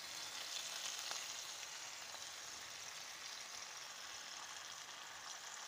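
Hot oil sizzling in a frying pan as a mustard, curd and melon-seed paste is poured over fried fish fillets: a steady, quiet hiss that eases slightly after the first couple of seconds.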